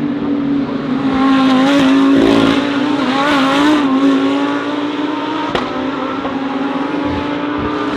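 Racing engines running at the track: a steady engine drone throughout, with a louder passing vehicle whose engine note wavers up and down between about one and a half and four seconds in. A single sharp click comes about five and a half seconds in.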